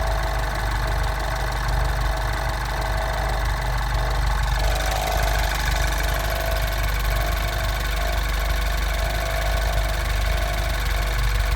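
Mini John Cooper Works R56's N18 1.6-litre turbocharged four-cylinder engine running steadily: the strange noise the owner is recording. A steady whine sits over the engine sound and grows stronger, with more hiss, about five seconds in.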